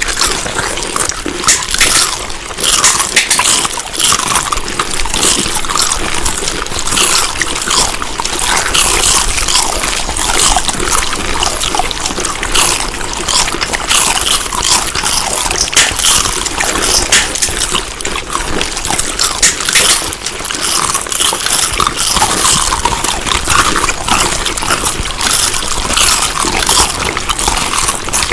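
Food being chewed close to the microphone: a dense, continuous run of small crackling clicks.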